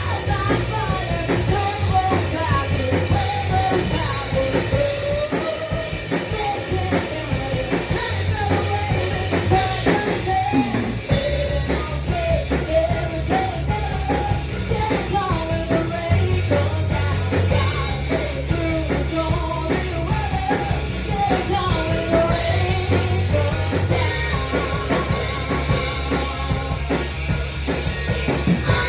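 A live band playing a song in rehearsal: a singer's voice carrying a wavering melody over drums and bass notes that change every second or two.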